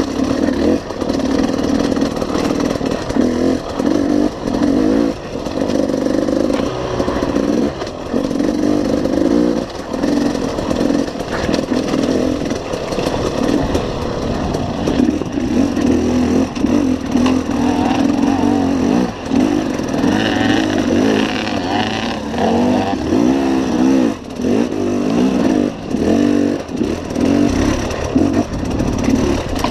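KTM enduro dirt bike engine revving hard and constantly changing pitch as it is ridden over rough trail, with quick rises and falls in revs that come thick and fast in the second half.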